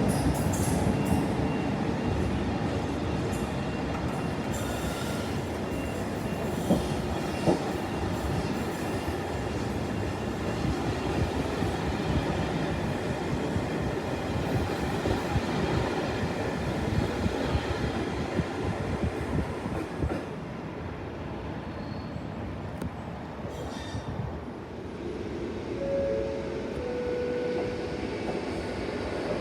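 Train running on the rails: a steady rumble of wheels on track, with two sharp clicks about seven seconds in. The rumble eases after about twenty seconds.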